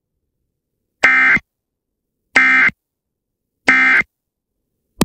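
Emergency Alert System end-of-message data bursts: three short, identical digital screeches about 1.3 seconds apart, marking the end of the alert. A brief click comes at the very end.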